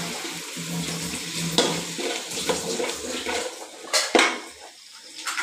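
A metal spoon stirring and scraping an onion-tomato masala in a metal kadai, clinking against the pan several times, with a sizzle of frying under it that dies down in the second half. The masala is frying after ginger-garlic paste has gone in.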